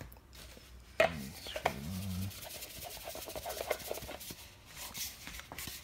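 Plastic foam cannon bottle handled and screwed onto the cannon's brass head: a sharp click about a second in, then plastic rubbing and scraping with small clicks from the threads.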